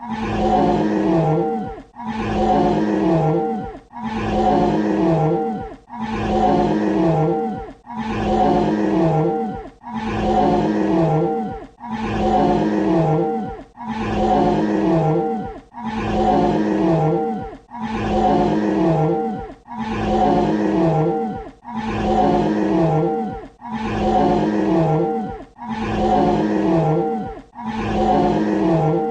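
Dinosaur roar sound effect: one short roar looped over and over, about one every two seconds with a brief gap between, each a loud low roar whose lowest tone dips in pitch near its end.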